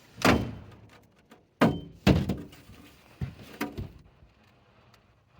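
Five heavy thunks in the boat in about four seconds, each ringing briefly, as a hoop net full of fish is hauled aboard.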